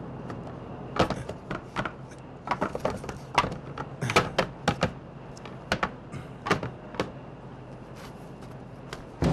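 A shovel digging into stony earth: a run of irregular sharp scrapes and strikes that starts about a second in and stops about seven seconds in.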